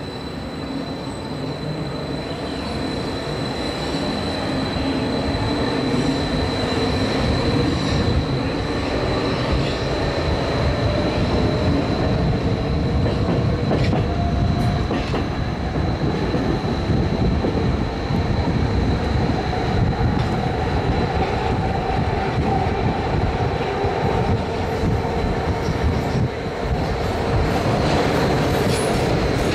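11th-generation ISAP (Athens Metro Line 1) electric train pulling away from a station and gathering speed. The wheels rumble on the rails, growing louder over the first few seconds, while the motor pitch rises slowly, over a steady high whine and a few rail-joint clicks. Near the end another train passes on the next track.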